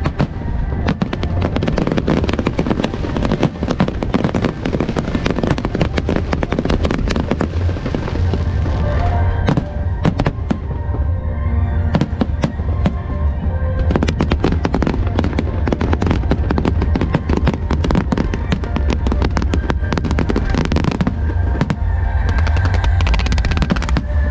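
Fireworks show: a rapid, continuous barrage of bangs and crackling, over music with a heavy bass. The barrage thins out briefly about halfway through, then picks up again.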